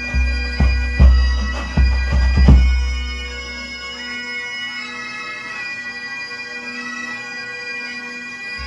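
Bagpipe music over steady drones, with a Scottish pipe band bass drum struck with mallets. About six low drum strokes fall in the first three seconds, then only the pipes sound until one more stroke at the very end.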